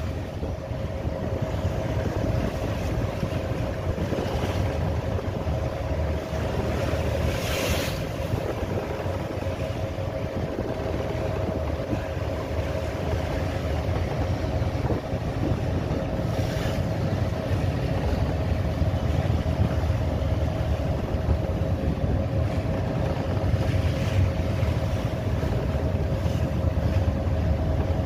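A motorboat's engine drones steadily at sea, with a low rumble and a steady hum, under strong wind on the microphone and the wash of big waves. Two brief rushes of noise come about a quarter of the way in and again past the middle.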